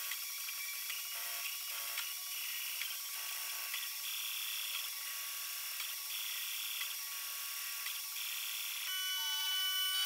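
MakerBot Replicator 2 3D printer's stepper motors whining in short, high-pitched runs of shifting tones as the print head moves over the part. The sound turns louder and steadier near the end.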